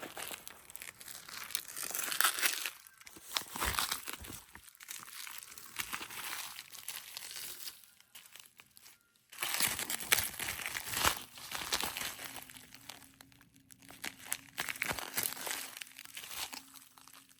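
Packaging being unwrapped by hand: irregular crinkling and tearing in bursts, with a short near-quiet pause about eight seconds in.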